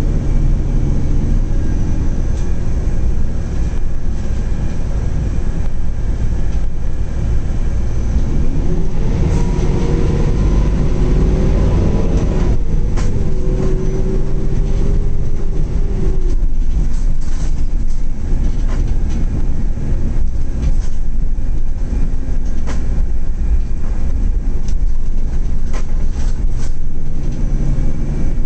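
Zhong Tong LCK6107H bus on the move, heard from inside the cabin: a steady low engine and road drone. Near the middle a whine rises in pitch and then falls away as the bus gathers speed, and light clicks and knocks come through in the second half.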